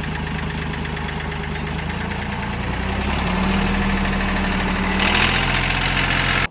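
Two-stroke chainsaw engine running fast and steady; its pitch steps up about three seconds in, drops back shortly after five seconds, and then cuts off suddenly.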